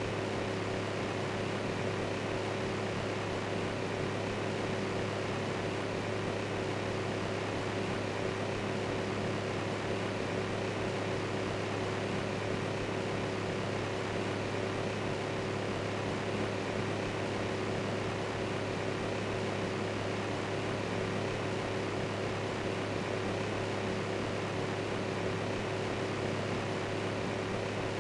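Electric fan running steadily: an even whirring noise with a constant low hum and a fainter higher tone.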